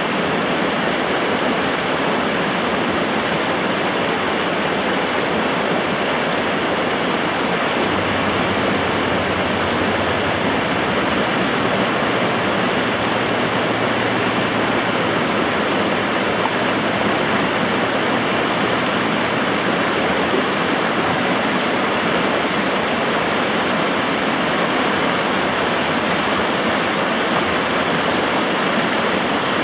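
Steady rush of the Firehole River's fast, choppy water, with hot-spring runoff pouring down the bank into it.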